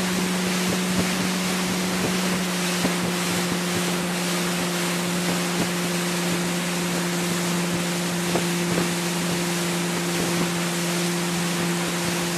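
Motorboat engine running at a steady pitch under way, towing at speed, with wind hissing on the microphone and water rushing past.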